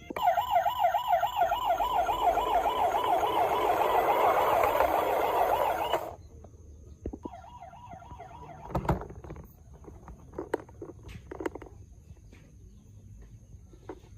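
Toy police car's electronic siren wailing in a fast warble, cutting off suddenly about six seconds in. Light clicks and knocks follow.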